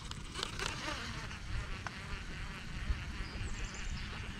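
Baitcasting reel being cranked to retrieve a topwater lure, a light steady whirring, over a low rumble of wind on the microphone.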